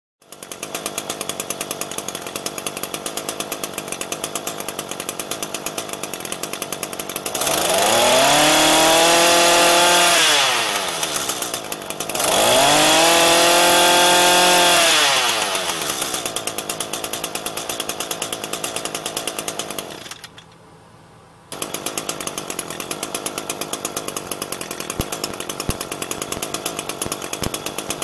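Echo brush cutter's small two-stroke engine idling with a fast, even beat, then revved to high speed twice, the pitch rising and falling back each time. At full throttle it turns about 9,800 rpm; at idle about 2,900 rpm. The sound briefly drops away about two-thirds of the way through.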